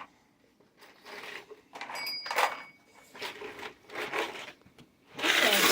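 Plastic toy pieces being handled and knocked together in short scattered clatters, with a brief steady electronic beep about two seconds in, then a loud rattle of pieces spilling near the end.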